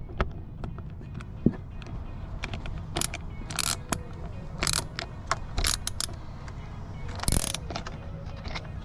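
Background music under irregular clicks, knocks and short scraping bursts of tools and parts being handled while the accessory drive belt is fitted on the engine.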